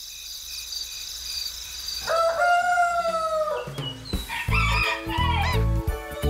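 A rooster crowing once, one long call about two seconds in, over a faint high steady shimmer. Then children's music with a steady bass beat starts, with short chirping glides above it.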